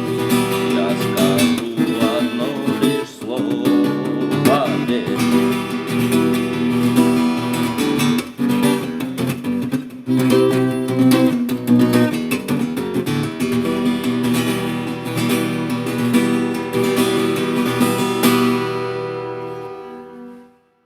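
Background music led by a strummed acoustic guitar, fading out near the end.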